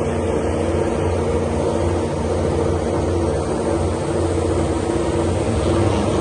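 MotoGP racing motorcycle engine running steadily at a constant speed, an even pitched drone with no revving.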